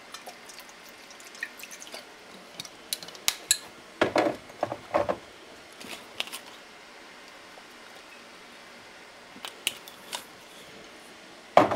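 Kitchen handling noise: scattered clicks and clinks of cookware and utensils, with a cluster of heavier knocks about four to five seconds in and a louder clunk at the very end.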